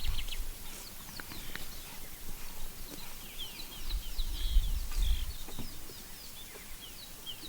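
Birds chirping: many short, quick, falling notes repeated throughout. A low rumble comes in about four seconds in.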